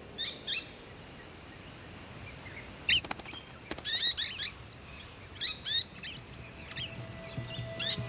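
Golden-shouldered parrots calling: short, high chirps in scattered bursts of several quick notes, with the busiest bursts about four seconds in and at the end.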